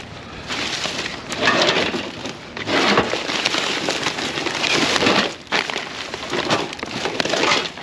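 Plastic trash bags and packaging rustling and crinkling as gloved hands dig through a dumpster, in several long bursts, with a sharp knock about three seconds in.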